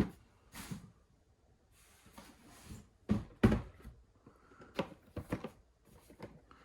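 Cardboard model kit boxes being handled, shuffled and set down: a string of short knocks and thumps, the loudest about three and a half seconds in.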